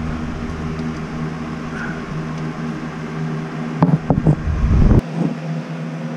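Oil filter cap wrench on a quarter-inch ratchet being fitted and worked against a stuck oil filter: rubbing and a few sharp knocks about four seconds in, with low handling rumble that stops suddenly near the end. Under it runs a steady mechanical hum; the filter does not turn.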